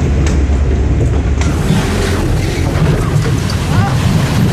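Log flume boat going over the top of the lift hill and down the chute: a steady low rumble with wind buffeting the camera microphone and water rushing, the hiss growing louder about a second and a half in.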